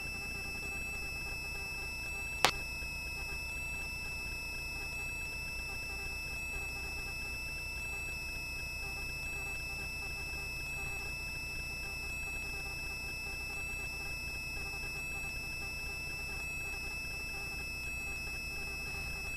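Helicopter cabin noise as picked up through the pilot's intercom: a steady high whine of several constant tones over a low hum, with a single click about two and a half seconds in.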